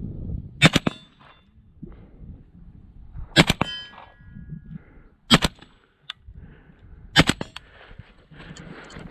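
Gunshots fired at steel targets, each hit followed by the ring of the steel plate: three quick double taps and one single shot.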